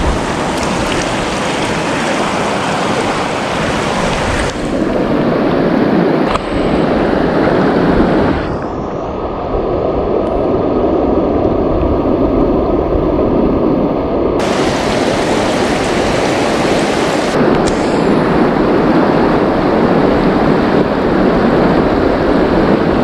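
Fast, shallow river rapids rushing over rocks: a steady, loud rush of water. It sounds muffled for several seconds midway, when the higher part of the rush drops away.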